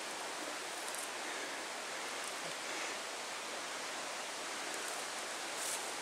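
Steady, even rustle of wind through the leaves of forest trees.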